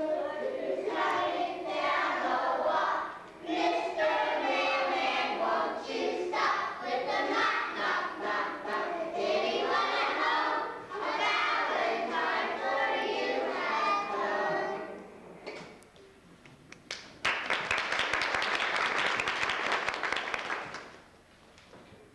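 A group of young children singing together for about fifteen seconds, then applause breaks out about seventeen seconds in and lasts about four seconds.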